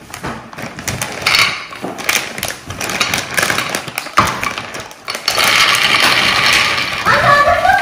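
Maltesers poured from a crinkling plastic bag, rattling and bouncing into a ceramic baking dish. Scattered clicks at first, then a dense continuous rattle for the last two seconds or so as the bulk of the bag pours out.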